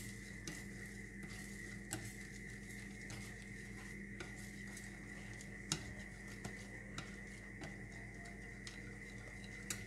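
Chopsticks stirring melting sugar in a stainless steel frying pan, with scattered light clicks and scrapes of the tips against the metal and one sharper tap a little past halfway. The sugar is melting into caramel for a braising sauce. A faint steady high tone runs underneath.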